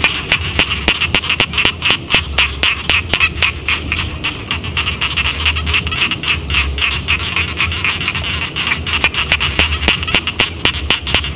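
Chorus of many rice-paddy frogs calling at once, a dense, rapid clatter of overlapping croaks that never lets up, over a low rumble.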